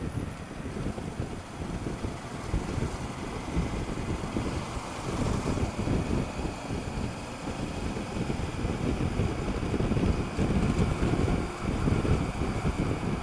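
Motorcycle riding noise on a Honda Africa Twin: wind buffeting the helmet-mounted camera's microphone over a low road and engine rumble, getting somewhat louder in the last few seconds.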